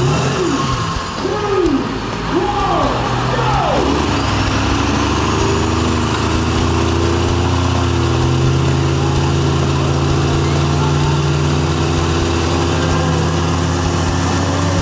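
A heavy vehicle's engine blips up and down in pitch a few times. About four seconds in it settles into a steady pull under load, its pitch creeping slowly upward, with a high whine climbing steadily above it.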